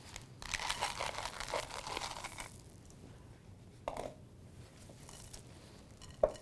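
Chocolate chips pouring from a small plastic container into a glass mixing bowl of cookie dough: a rattling patter of many small ticks lasting about two seconds. A light clack follows about four seconds in, and a sharper knock near the end.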